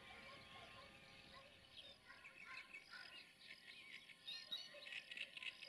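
Faint birdsong: several birds chirping and twittering in quick short phrases. A faint steady hum fades out about two seconds in.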